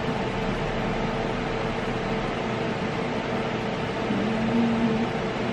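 Steady hum and hiss of a running room appliance, with a constant tone throughout. About four seconds in comes a brief low hum lasting under a second.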